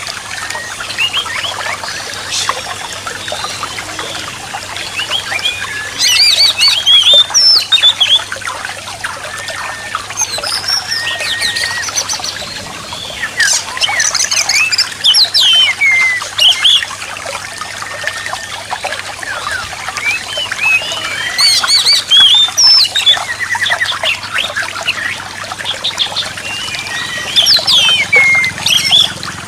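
Oriental magpie-robin (kacer) song: loud bursts of quick, varied whistled phrases every few seconds over a steady trickle of running water. This is a song-therapy recording meant to prompt a magpie-robin that has stopped singing.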